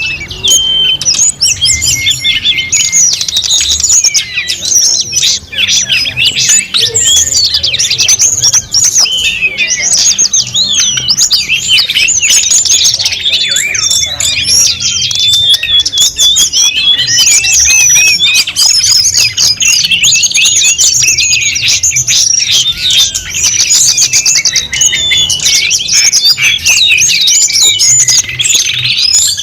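A dense chorus of many birds chirping and calling at once, with quick whistled notes and trills overlapping without a break.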